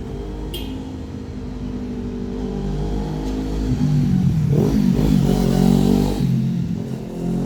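Kawasaki Ninja 400's parallel-twin engine through a WR aftermarket exhaust as the bike rides past. The engine note builds, is loudest about four to six seconds in as the pitch sweeps past, then falls away.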